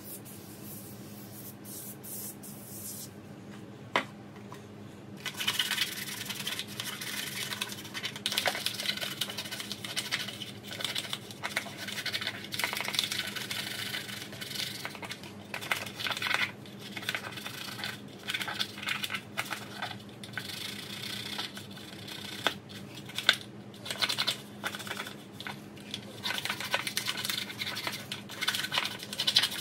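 Toothbrush scrubbing a tackle box tray: a rapid, uneven scratching of bristles that starts about five seconds in and keeps going, with a few light clicks before it.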